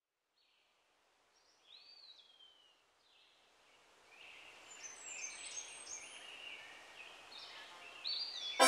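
Bird chirps and short whistled calls over a soft outdoor nature ambience, very faint at first and fading up about four seconds in. A plucked banjo tune begins at the very end.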